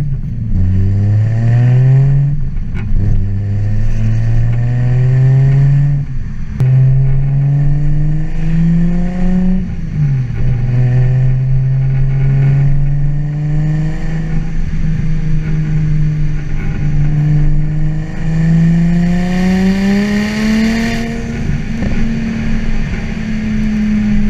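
Turbocharged Toyota 2JZ-GTE straight-six in a BMW E36 M3 pulling through the gears: the engine note climbs, then drops at an upshift about 2, 6 and 10 seconds in, before holding a steadier pitch. A loud hiss swells with a final rise in revs near the end.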